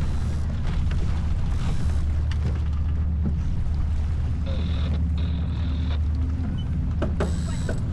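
Steady low wind and water rumble aboard a J24 keelboat sailing upwind, with scattered clicks and creaks from the deck gear and a brief high squeak about halfway through.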